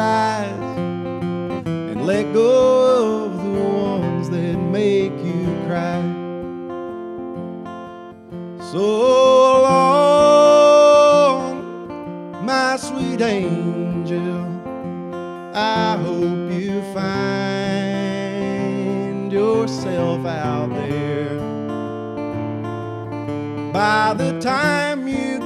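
A man singing over a strummed acoustic guitar. A long held high note comes about nine seconds in and is the loudest part.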